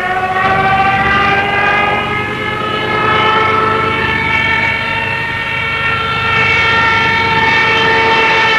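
Ju 87 Stuka's Jericho trumpet, the ram-air siren on its main gear legs, wailing steadily over a low rumble. Its pitch climbs slowly for the first few seconds and then holds.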